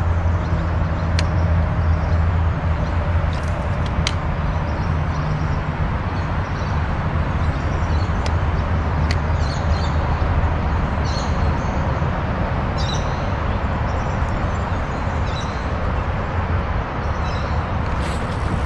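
A steady low rumble with a hiss, easing after about six seconds, with a few sharp ticks. Short, high bird chirps come several times in the second half.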